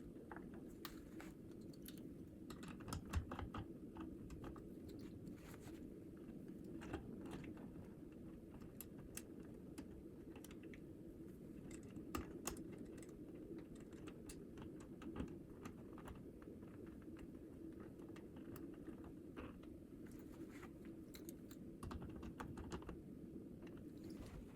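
Faint, irregular clicks and taps of hand work on low-voltage doorbell wiring: small tools, screws and bell wire being handled at the terminals, over a steady low hum.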